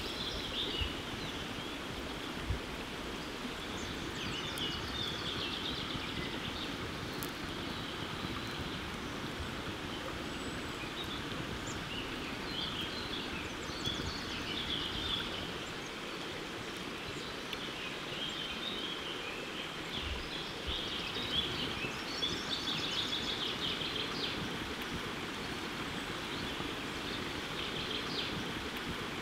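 Small birds chirping and singing in short scattered phrases over a steady outdoor background hiss, with a few faint knocks.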